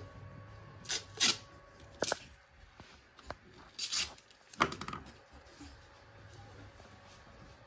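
Paper and sticky tape handled by hand: about half a dozen short crinkling, tearing sounds, clustered around the first two seconds and again about four to five seconds in.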